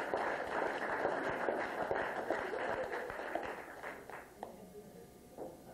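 A room of guests applauding, dying away about four seconds in.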